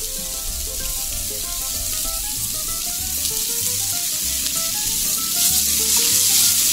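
Cubes of beef tenderloin sizzling as they fry in a hot pan of oil and butter, the hiss growing louder toward the end.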